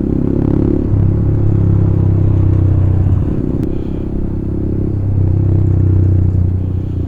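Motorcycle engine and exhaust running while riding, with a steady low drone. It opens up about a second in, eases off around four to five seconds, then picks up again.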